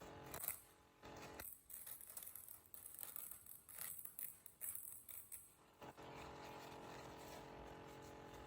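Paper towel being scrunched and handled close to the microphone, with irregular crinkling and crackling. About six seconds in the handling stops and a steady background hum is left, which the uploader takes for a laptop.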